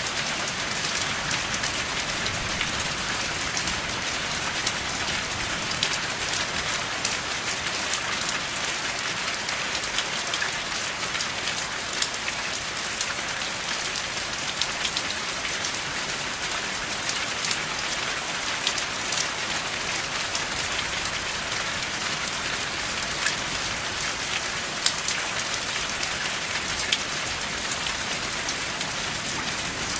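Steady rain falling, an even hiss dotted with the ticks of many individual drops striking a surface.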